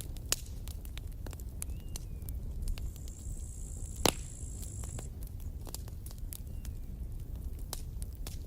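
Campfire burning: irregular sharp crackles and pops of burning wood over a low steady rumble, with one loud pop about four seconds in. A high, thin whistle sounds for about two seconds around the middle.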